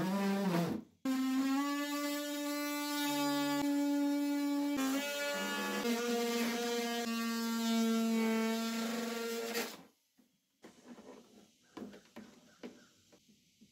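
Cordless oscillating multi-tool buzzing steadily as its blade cuts through the thin clear plastic lid of an organizer box, the pitch sagging slightly under load. It stops briefly about a second in and cuts off near the end, leaving faint handling clicks.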